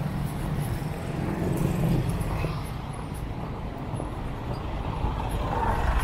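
Street traffic: motorcycles and cars running by with a steady low rumble, and an SUV passing close, louder near the end.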